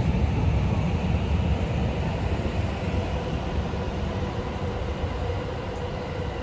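Electric train running past: a heavy low rumble with a steady whine above it, slowly fading.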